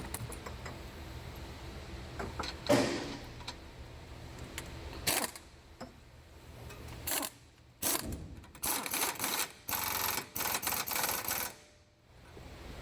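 Mechanic's tools at work on a car's rear brake and wheel hub assembly: a few sharp knocks, then, in the second half, several short bursts of rapid mechanical rattling.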